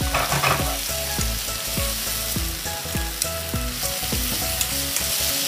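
Pork belly slices sizzling in hot oil in a stainless steel frying pan, turned over with wooden chopsticks. The sizzle is a steady hiss with a few sharp ticks.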